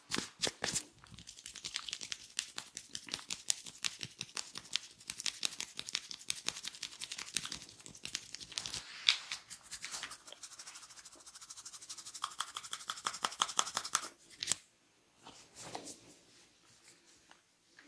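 Hands and fingers working over a person's hair and scalp in a head massage, making rapid crackling taps, many sharp strokes a second. They stop about three seconds before the end, leaving only a few faint taps.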